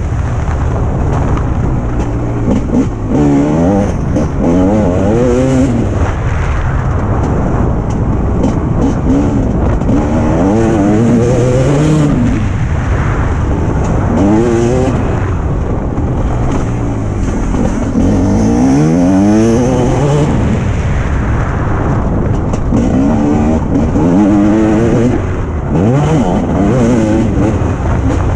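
Motocross bike engine, heard on board, revving up and dropping back again and again as the rider accelerates and shifts gear along the track, with rushing wind on the microphone. The bike is running well.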